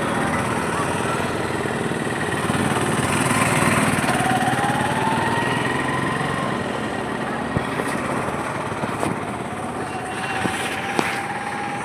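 Bulldozer's diesel engine running steadily under load, with a slowly rising whine twice and a few sharp knocks in the second half.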